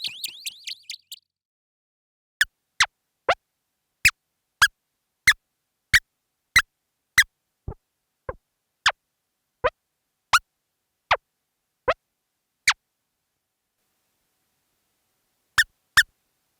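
Synthesized cartoon footstep effect, a recreation of Tara-chan's walking sound: a run of short chirps, each dropping quickly in pitch, at a steady walking pace of roughly one and a half steps a second, slowing a little. After a pause, two more steps sound near the end.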